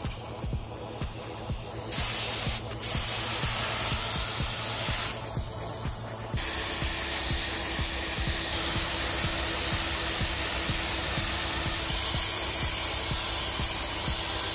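Compressed-air gravity-feed spray gun spraying gelcoat, a steady hiss of air and atomised resin. It starts and stops with the trigger: a spray of about three seconds, a short pause, then continuous spraying from about six seconds in.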